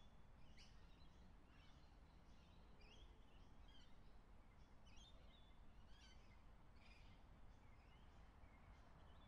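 Faint birdsong: many short chirps and calls, one or two a second, over a low steady background rumble.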